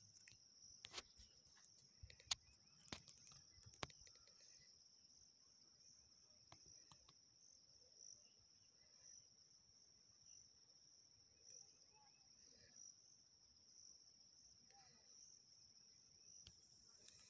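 Faint, steady high-pitched insect trill with a slight pulse, typical of a cricket, and a few sharp clicks and knocks in the first four seconds.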